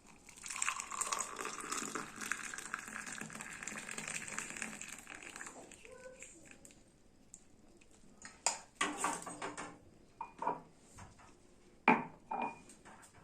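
Hot turmeric milk poured out of the pan in a steady stream for about five seconds, then a few sharp clinks and knocks of pots and utensils.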